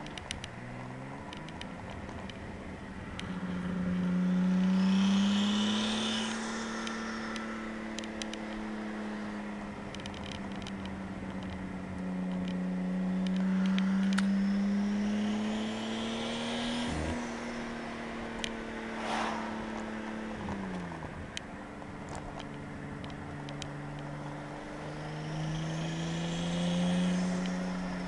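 RB25/30 straight-six engine on an RB20 ECU's base timing and fuel map, driven under load in three pulls. Each pull makes the engine louder and adds an extra higher noise that fades when the throttle is lifted; the owner is unsure whether it is knock or a bad lifter.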